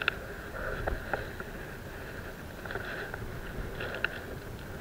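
Wind on the microphone and sea noise against a concrete sea wall, with a few faint clicks.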